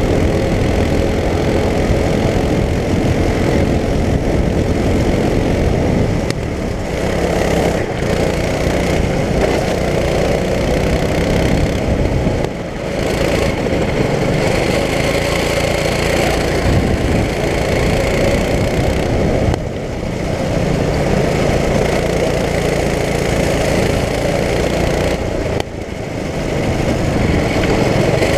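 Performance go-kart's small engine running hard on track, heard from on board, its pitch rising and falling; it drops back briefly four times, about every six seconds, as the throttle comes off for corners.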